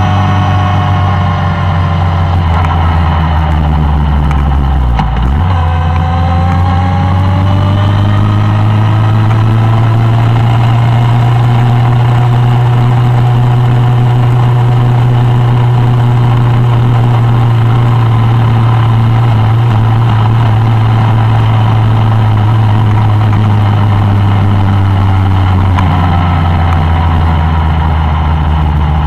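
Suzuki Bandit 1200 inline-four engine running under way on a ridden motorcycle. Its note drops about five seconds in, climbs again over the next few seconds as the bike accelerates, then holds steady, dipping briefly and rising again near the end.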